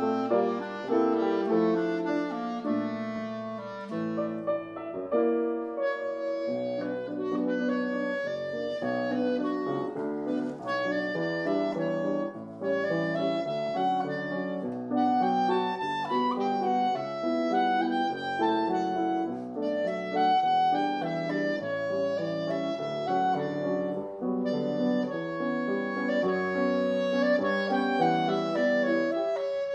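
A clarinet in A and a piano playing together: the clarinet carries a flowing melody that rises and falls over continuous piano chords and runs.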